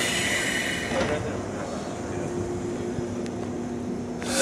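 A 183 series express electric train stands at the platform with a steady low hum while a high ringing departure signal cuts off about a second in. Near the end the train's horn sounds loudly for departure, a blast with several pitches.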